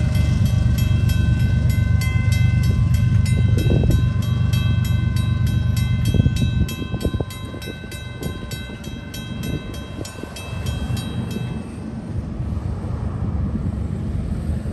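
Railroad grade-crossing bell dinging at a steady rate, stopping about 12 seconds in as the gates rise. Under it runs a loud low train rumble that drops away about six and a half seconds in.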